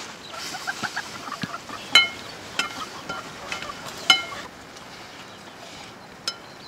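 A metal spoon stirs greens in a metal wok over a wood fire, with a soft sizzle and three ringing clinks of spoon on pan. The sizzle fades out near the end. Short high chirps sound in the first two seconds.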